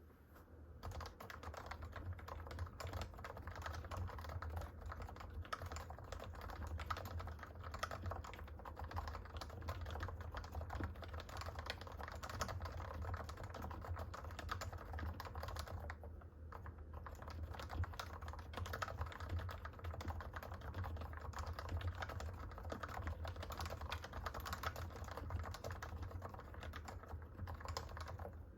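Continuous fast typing on a Realforce 45g Topre electrocapacitive keyboard, fully lubed (stems, springs, stabilisers, housings lightly lubed), giving a dense run of soft key thocks with a light stock-Topre rattle, pausing briefly about two-thirds of the way through.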